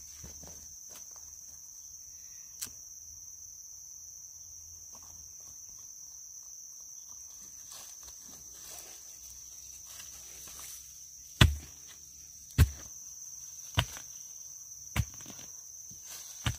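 Insects trilling steadily in one high, even tone. Over it come sharp knocks: a single one a few seconds in, then five more evenly spaced a little over a second apart in the second half, the first of these the loudest, like blows from a tool on wood.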